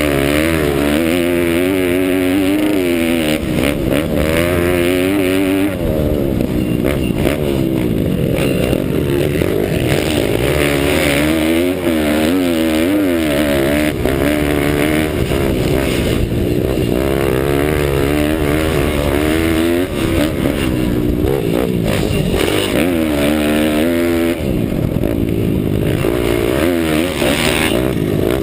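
Pit bike's 190 cc Daytona Anima single-cylinder four-stroke engine running hard, its pitch rising and falling over and over with throttle and gear changes, heard from a helmet-mounted camera with wind rushing over the microphone.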